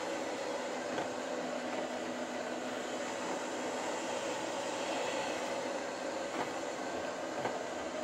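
Robot vacuum running steadily, its motor and suction giving a constant hum, with a few light knocks as it bumps the legs of the stool it is trapped under.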